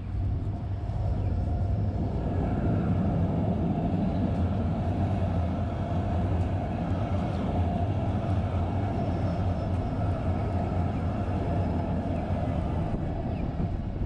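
A light-rail train running on the street tracks, giving a steady hum that grows a little louder about two seconds in and then holds.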